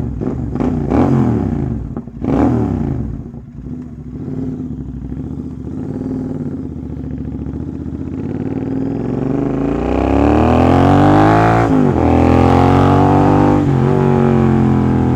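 Royal Enfield GT 650 parallel-twin engine with an AEW full-system exhaust being revved while parked: two quick throttle blips, then a slow climb to high revs held for a couple of seconds. It drops back suddenly, revs up once more and falls back to idle near the end.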